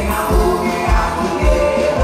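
Music with a steady bass drum beat, about two beats a second, under a sustained melody.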